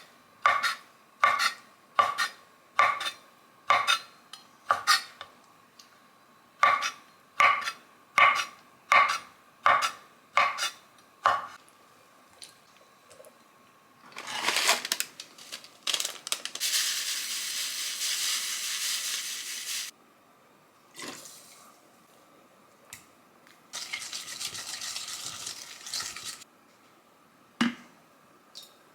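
A metal utensil clinking against a dish in a steady series of strikes, about one every two-thirds of a second, as food is mixed. Then a steady hiss comes twice, for several seconds each time, and a single knock sounds near the end.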